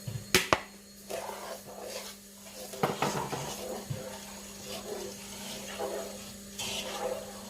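Sugar being added to a pan of hot water: two sharp knocks of a container or spoon against the pan near the start, another knock about three seconds in, then scraping and rustling. A steady low hum runs underneath.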